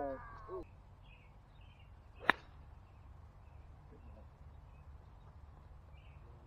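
A golf club striking a ball: one sharp, loud crack about two seconds in, with faint bird chirps around it.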